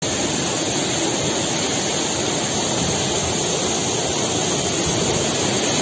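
Fast-moving floodwater rushing steadily through a street, a continuous even noise.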